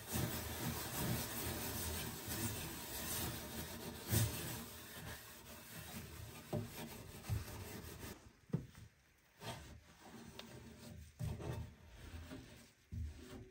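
A square scouring sponge scrubbing the inside wall of an oven to lift baked-on grease: a quick run of rubbing strokes that thins out after about eight seconds into sparser, quieter wipes and a few light knocks.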